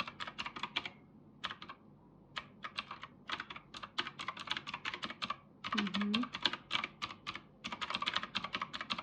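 Fast typing on a computer keyboard: quick runs of crisp keystrokes, thinning to a few scattered keys for about a second near the start, then picking up again.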